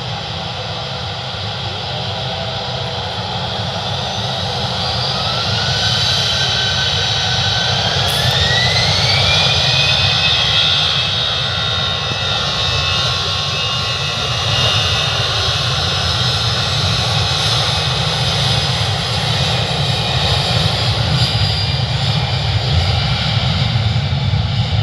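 Airplane engines running loud and steady over a low rumble, their whine climbing in pitch between about five and ten seconds in, then holding steady.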